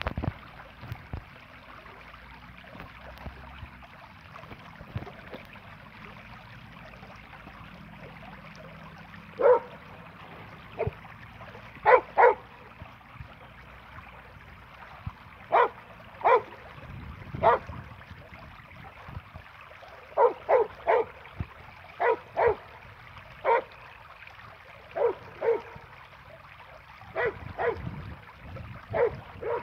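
Border Collie barking in short, sharp single barks, often in quick pairs, starting about a third of the way in and repeating every second or two. Under them, a steady trickle of water running in a shallow stone channel.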